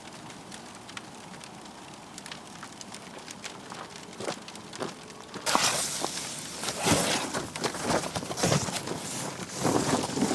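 Wood fire crackling faintly with scattered small pops. About halfway through, much louder close rustling and knocking of something being handled takes over.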